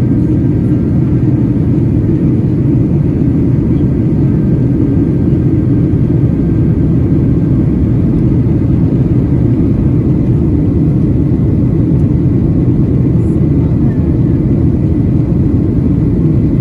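Cabin noise aboard a Boeing 737-800 in flight: the steady, even rumble of its CFM56 engines and the airflow over the fuselage, heard from a window seat behind the wing.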